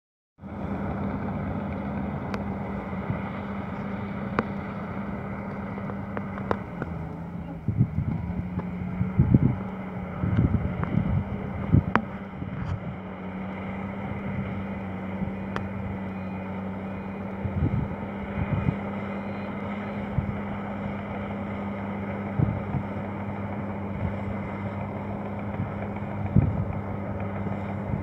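Komatsu D65 PX bulldozer's diesel engine running steadily under load while it pushes earth, a constant engine hum, with gusts of wind buffeting the microphone now and then.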